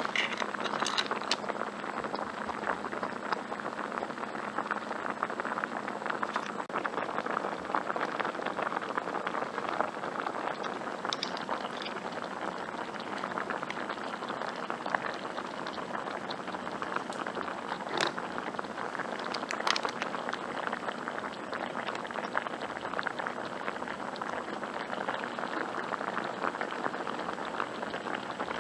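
Seafood hotpot boiling: a steady, dense bubbling, with a few sharp clicks of metal tongs.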